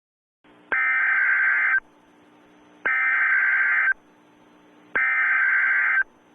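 Emergency Alert System SAME header: three bursts of digital data tones, each about a second long and about a second apart, over a faint hiss.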